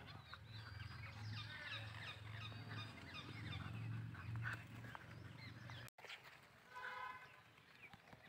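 Animal calls: many short, quick, high-pitched chirps and squeaks over a low rumble, then after a brief cut one short nasal call.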